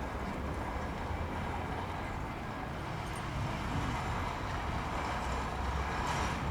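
Steady rumble of road traffic, with no single vehicle standing out.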